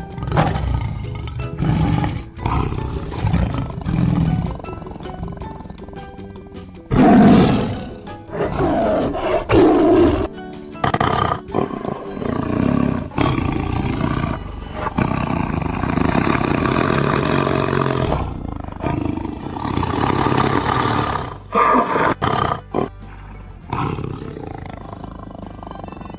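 A large wild animal roaring and growling repeatedly over background music, the loudest roars about seven and ten seconds in.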